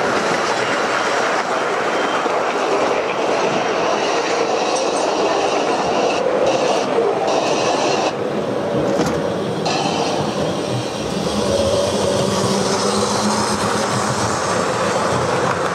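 O gauge model trains running past on layout track, with a steady clatter of metal wheels over the rails and rail joints. A small dip about halfway through, then the clatter goes on.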